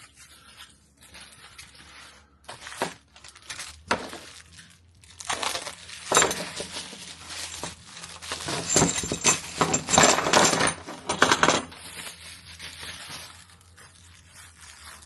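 Small metal bolts and screws clinking and rattling as they are handled, with plastic packaging crinkling; the clinking is busiest from about six to twelve seconds in.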